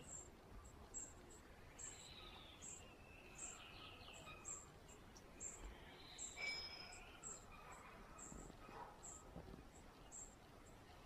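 Faint outdoor wildlife ambience: a short high chirp repeating about twice a second, with bird calls and trills scattered around it.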